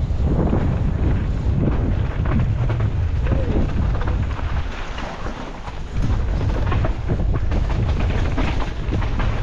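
Wind buffeting a helmet camera's microphone as a downhill mountain bike runs fast down a dirt forest trail, with a constant run of rattles and knocks from the bike over the rough ground. The rush eases for a moment about five seconds in, then comes back suddenly.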